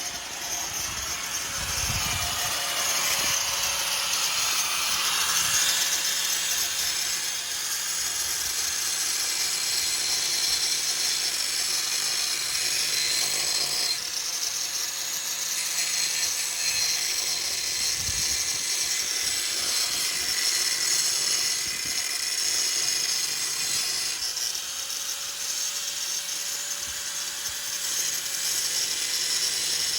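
A power tool running in long steady stretches, with breaks about 14 and 24 s in, during work on the car's exhaust.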